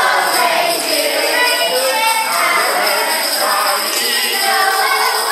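Voices singing over the steady shaking of jingle bells.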